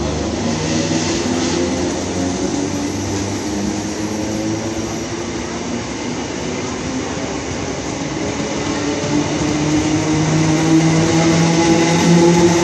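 Greater Anglia Class 317 electric multiple unit moving through the station, with a steady rumble and a motor whine. The whine rises in pitch and grows louder over the last few seconds as the train gathers speed.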